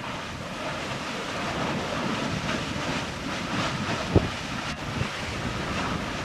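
Wind buffeting the microphone: a steady rushing noise, with one short sharp crack about four seconds in.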